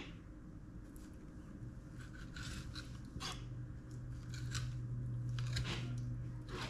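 Filleting knife cutting and scraping through a sea perch fillet on a bamboo cutting board as the bones are cut out: a scatter of short scrapes and clicks. A steady low hum comes in about a second and a half in.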